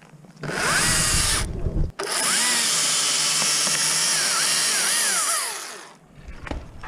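Chainsaw cutting in two runs, a short one and then a longer one of about four seconds, its pitch rising and dipping as it works through the wood, then dying away.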